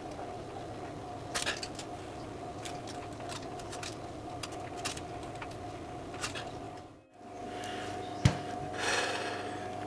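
Hand-cutting and handling sounds from material being worked on a bench: faint scrapes, rubbing and light clicks over a steady electrical hum. The sound cuts out briefly about 7 seconds in, and a single knock follows a second later.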